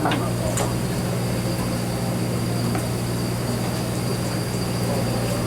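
Fishing party boat's engine running with a steady low hum, and a thin steady high whine above it.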